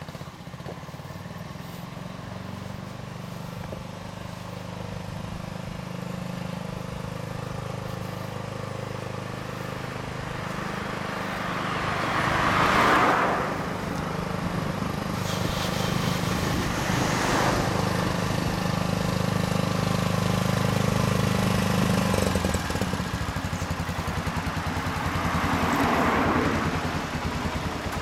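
A Suzuki Tempter 400's big single-cylinder engine running at low revs as the bike rides slowly up the street and pulls in. Its steady low note grows louder and changes about three-quarters of the way through. Other vehicles swell and fade past about 13 and 17 seconds in, and again near the end.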